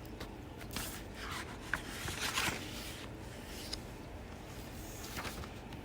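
Pages of a picture book being handled and turned: a few soft paper rustles and light taps, mostly in the first half and once more near the end.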